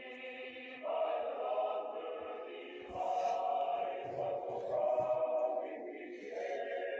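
Choir singing long held notes, the chord changing every second or two, as part of a TV sign-off's music.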